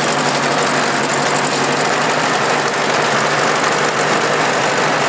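Ford Jubilee tractor's four-cylinder engine running steadily as the tractor drives along.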